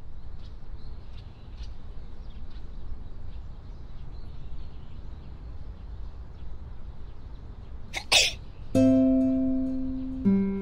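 A single sneeze about eight seconds in, over a steady low background noise with faint high ticks. Just after it, plucked-string notes start, each held a second or so.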